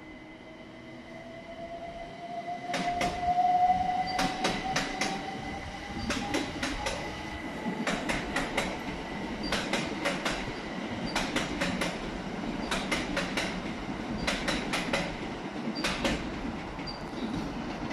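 Southeastern electric multiple-unit train running past: a motor whine rising in pitch over the first few seconds, then wheels clicking over rail joints in evenly spaced pairs, a group about every second and a half, over a steady rumble.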